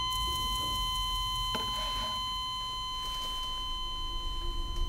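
Film soundtrack sound design: several steady, high electronic tones held over a low rumble, with a faint click about a second and a half in.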